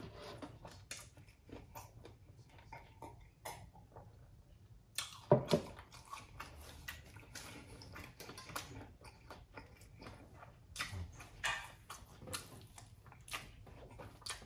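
Close-miked mouth sounds of someone eating spicy instant noodles: wet chewing and smacking with many short clicks, one louder sharp click about five seconds in.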